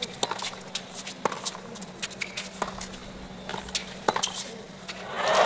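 Tennis rally on a hard court: sharp pops of racket strings striking the ball, roughly every second and a half, over a hushed stadium crowd. Near the end the crowd breaks into loud applause as the point ends.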